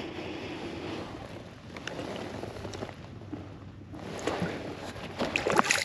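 Water splashing and dripping at the side of a kayak as a fluke (summer flounder) is lowered by hand into the sea, with a cluster of sharper splashes near the end.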